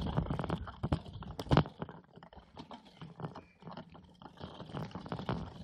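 Mountain bike rattling and knocking as it rolls over a bumpy dirt trail, with a loud knock about a second and a half in.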